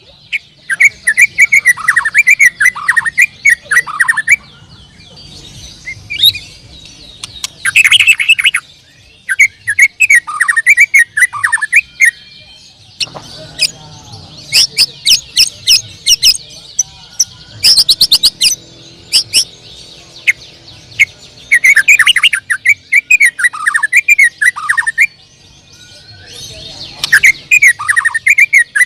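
White-rumped shama (murai batu) singing: loud bursts of rich, sweeping whistled phrases mixed with high chattering notes, each burst a few seconds long with short pauses between.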